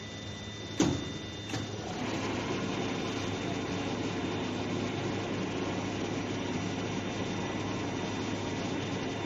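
A sharp knock about a second in, then from about two seconds in a steady mechanical whirring. This is the semi-automatic shrink-wrapping machine running as its sealing bar closes on the film to seal and cut it.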